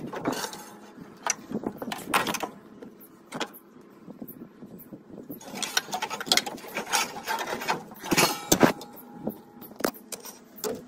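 Handling noise from a vehicle wiring harness being pulled free by gloved hands: irregular clicks, knocks and rustling of wires and plastic connectors, with a quieter pause of about two seconds in the middle.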